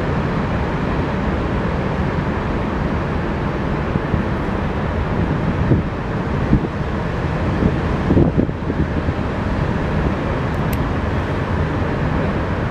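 Steady wind rumble buffeting the microphone outdoors, with a few brief soft bumps about halfway through.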